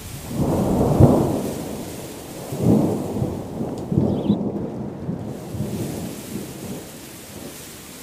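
Thunder rumbling in three heavy swells over a steady hiss of rain, dying away toward the end.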